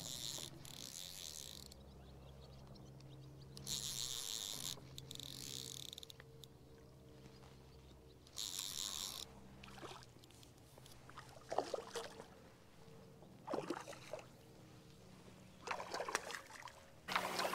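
Fly reel being wound in by hand, its clicker buzzing in several short bursts as line comes back onto the spool. Near the end, a hooked trout splashes at the surface.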